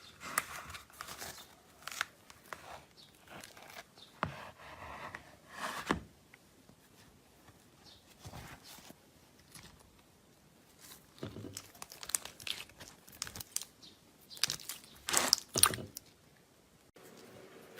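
Slime being squeezed and pulled by hand, giving irregular clusters of sharp crackles and pops with quieter gaps between them; the loudest cluster comes near the end.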